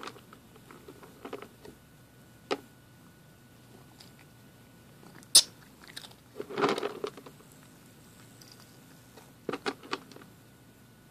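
A cat crunching and chewing a dry treat: scattered short crunches with pauses between, and one sharp click about five seconds in.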